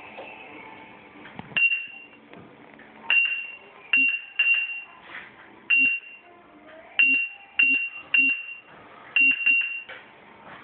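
Proliner 3D digitizer beeping as points are taken with its stylus: about eleven short high beeps at irregular intervals, some in quick pairs, each starting with a click.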